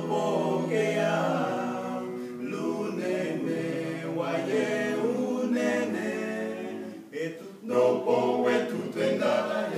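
Male vocal group of five singing a gospel song a cappella in harmony, the voices holding long chords without clear words. The singing drops briefly about seven seconds in, then comes back strongly.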